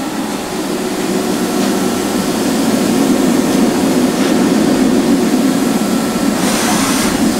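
Toyoda CNC horizontal machining center running with a steady machine hum, getting a little louder over the first couple of seconds as it is started up to home its axes. A brighter hiss joins near the end.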